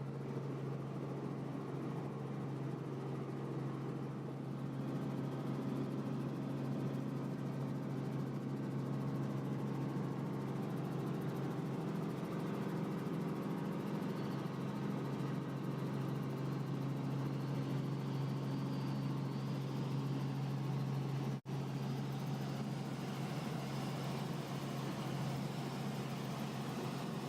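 Helicopter noise heard from inside the cabin: a steady low drone with a faint high whine above it, broken by a split-second dropout about two-thirds through.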